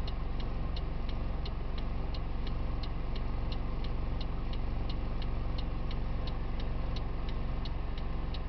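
A vehicle's indicator relay ticks evenly at about three clicks a second over the steady low hum of an idling engine.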